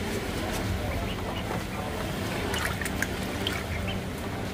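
Two ducklings dabbling with their bills in a shallow dish of wet chopped sausage, making wet slurping and dribbling sounds with scattered small clicks, several clustered just past halfway.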